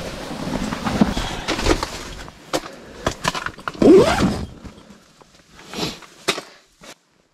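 Rustling of tent fabric and clothing with irregular knocks and scrapes as a bucket and a lamp are set down on the ice inside an ice-fishing tent, loudest about four seconds in and dying down near the end.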